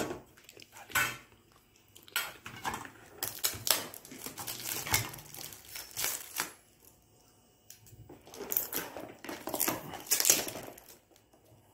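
Irregular handling clatter of a steel food tin and its lid knocking and clinking, mixed with plastic wrap crinkling as food containers are unpacked by hand, in two busy spells with a quieter gap between.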